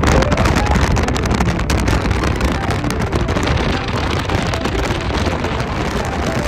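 Steady road and wind noise of a car travelling at highway speed, heard from inside, with many small crackles over it.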